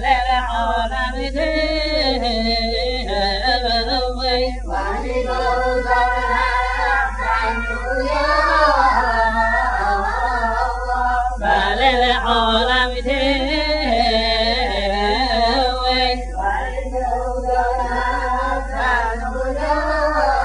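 A man's voice singing a Yemenite Jewish shira (diwan song) in a slow, wavering, ornamented chant, with short pauses for breath, over a steady low hum.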